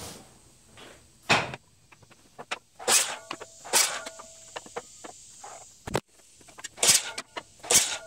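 Handling noise as the camera is picked up and moved: a series of irregular knocks, scrapes and rustles, several of them louder, with no saw running.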